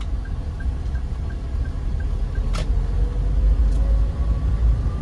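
Cabin sound of a 2018 Toyota Avanza 1.3 G's 1300cc dual VVT-i four-cylinder engine pulling at low speed: a low rumble that grows gradually louder, with a faint rising whine in the second half. A light regular ticking, about three a second, stops about halfway through, and a single click follows.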